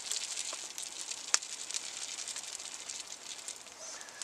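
Gravy granules shaken from a tub into a pot of stew, a steady light pattering hiss, with sharp crackles from a wood fire, the loudest about a second and a half in.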